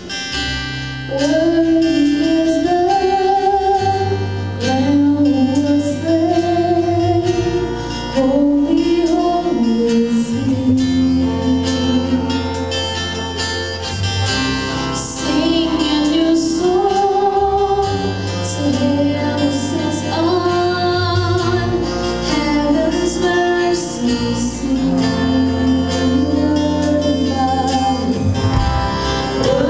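Live band playing with a woman singing the lead melody, backed by acoustic and electric guitars, keyboard and sustained bass notes.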